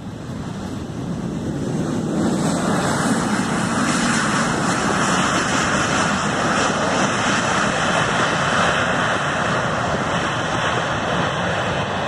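Boeing 737 twin jet engines running at high power in reverse thrust just after touchdown on a wet runway. It is a loud, steady rush of noise that swells over the first two seconds, then holds.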